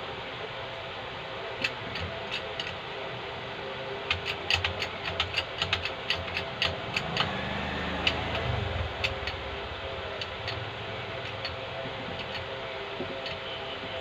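Hand-pumped 10-ton hydraulic bottle jack in a shop press: sharp metallic clicks from the pump handle being worked, coming in a quick run of several a second around the middle, over a steady background hum.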